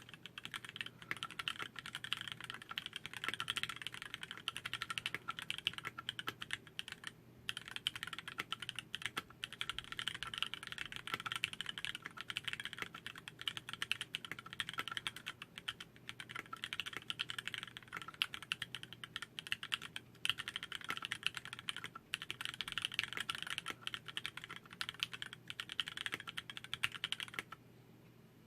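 Fast, continuous typing on a TX60 custom mechanical keyboard with a brass plate and Cherry MX Vintage Black linear switches on 65 g springs: a dense stream of key clacks. There is a brief pause about seven seconds in, and the typing stops a second before the end.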